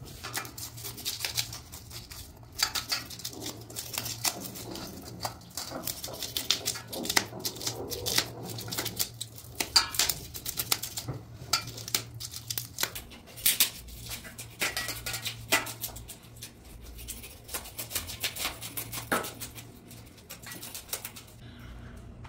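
A blade scraping the scales off a whole hilsa fish in quick, irregular strokes.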